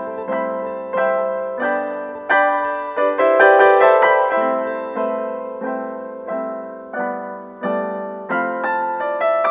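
Background piano music: a slow series of struck chords, about one every three-quarters of a second, each ringing and fading away.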